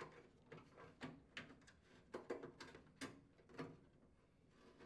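Faint, irregular clicks and taps of a flathead screwdriver and fingers working the plastic latch of a microwave's upper door-switch holder to release it.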